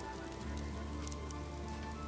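Japanese cedar and cypress bark burning in an incineration basket, crackling and popping irregularly, with soft music of long held notes running underneath.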